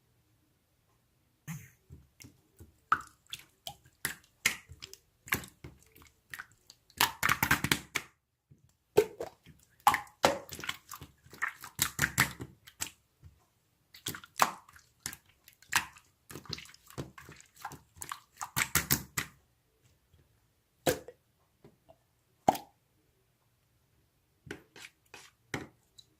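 Irregular small clicks and taps, some in quick clusters and others single, thinning out over the last few seconds.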